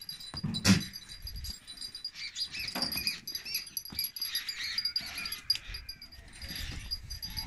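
Beetal goats calling in short bleats, one loud bleat about a second in, with small high chirps and a steady high whine behind.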